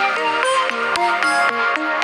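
Smartphone ringtone playing: an electronic synth melody of short notes over a swooping bass note that repeats about every three-quarters of a second.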